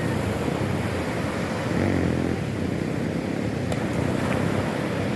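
Sea waves and wind, with wind buffeting the microphone: a steady rushing noise, heaviest in the low end.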